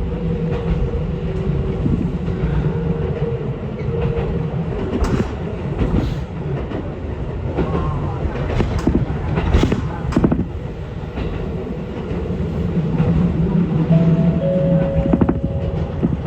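Ichibata Electric Railway train running, heard from inside the car: a steady rumble with motor tones and a run of sharp clacks from the wheels over rail joints in the middle.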